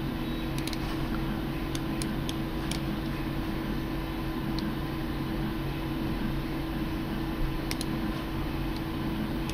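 Scattered sharp computer mouse clicks, several in the first three seconds and a quick cluster near the end, over a steady low hum.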